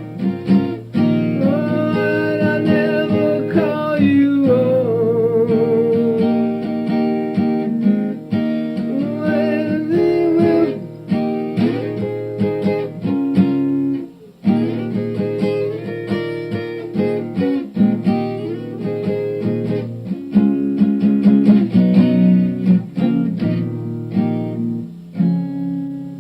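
Instrumental music led by strummed and plucked acoustic guitar, with a brief dip in level about midway.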